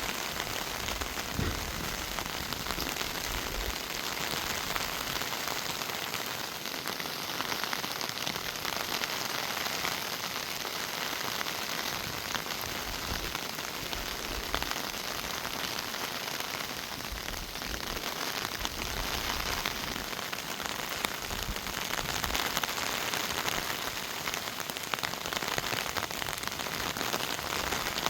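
Steady monsoon rain falling on trees and leaves, an even hiss of many drops.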